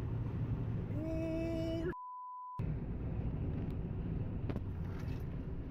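Steady rumbling noise with a held tone about a second in, then a censor bleep about two seconds in: a single pure beep with all other sound cut out for just over half a second.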